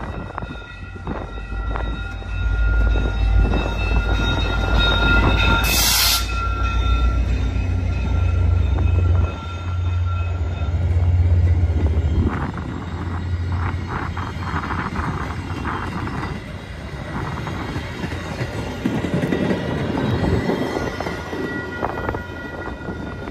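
A VIA Rail passenger train passes a level crossing. Through the first half the diesel locomotive's engine rumbles as it comes by, with the crossing bells ringing steadily and a brief loud hiss midway. The passenger cars then roll past with a run of wheel clicks and clatter that slowly fades.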